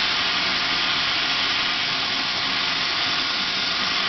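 Paint spray gun hissing steadily with compressed air while spraying automotive base coat.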